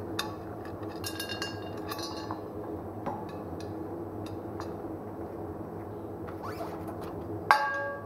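Metal clinking and tapping, as tools knock against a steel wheel rim while a small tubeless agricultural tyre is fitted, with one loud ringing strike about seven and a half seconds in. A steady low hum runs underneath.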